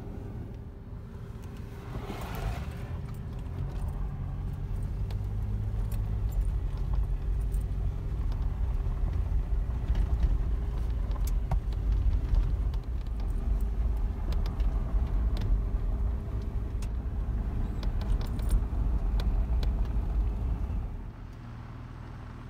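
Inside an SUV driving a gravel dirt road: a steady low rumble of tyres and engine with scattered small clicks from the road and cabin. It quiets near the end.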